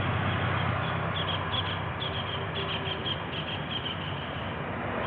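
Low steady rumble of vehicle engines and road traffic, with a small bird chirping in quick short notes from about a second in until near the end.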